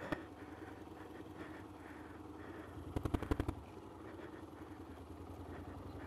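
Motorcycle engine idling steadily, with a quick run of rattling clicks about three seconds in.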